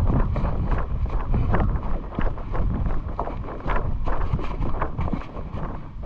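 Wind buffeting the microphone as a heavy low rumble, with frequent irregular clicks and rustles on top. The rumble eases off near the end.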